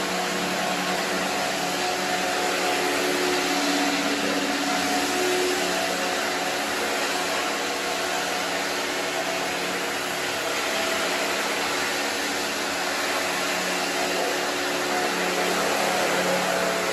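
Single-disc rotary floor scrubber running steadily over a soapy wet rug: a steady electric motor hum under a broad hiss of the rotating brush scrubbing the wet carpet.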